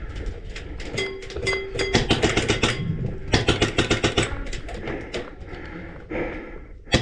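Rapid, irregular sharp clicks and knocks, densest through the middle, with a brief steady tone about a second in.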